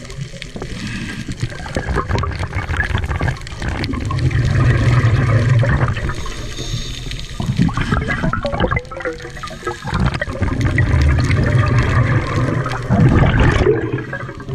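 Scuba diver's open-circuit regulator breathing, heard underwater: several long rushes of exhaled bubbles a few seconds apart, with quieter inhalations between.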